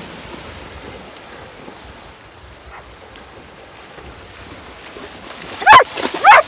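Shallow sea surf washing and splashing as dogs run through it, with wind on the microphone. Near the end come two loud, short, high-pitched squeaks about half a second apart.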